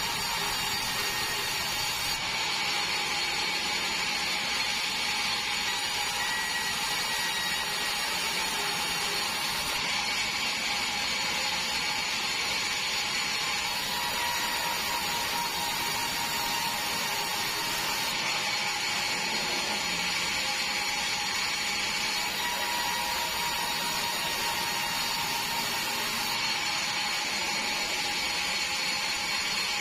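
Horizontal band sawmill running: a constant hiss with a steady high whine from the blade and drive.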